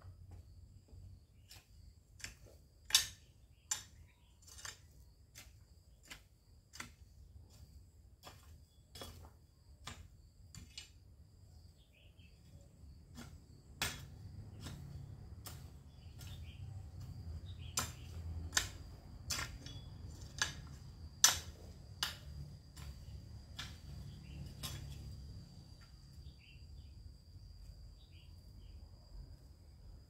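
Long-handled metal digging tool chopping into hard, dry ground: sharp metallic chops about every second, stopping near the end.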